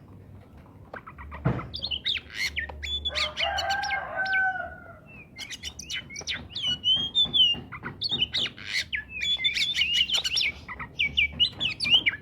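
Oriental magpie-robin (kacer) singing vigorously: a rapid run of sharp whistled and chattering notes, starting about a second and a half in.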